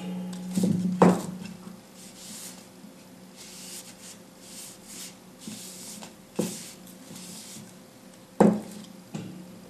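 A cloth pad rubbing over a walnut-root wooden bowl, a soft repeated hissing wipe, broken by a few wooden knocks as the bowl is handled and set against the desk: a sharp one about a second in and another near the end. A faint steady hum sits underneath.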